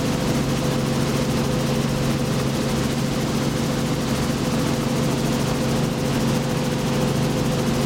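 Robinson R44 helicopter in steady cruise, heard from inside the cabin with the doors off: the constant drone of its six-cylinder piston engine and rotors, with a steady low hum, under wind rushing past the open doorway.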